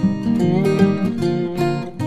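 Background music played on acoustic guitar: a run of plucked and strummed notes.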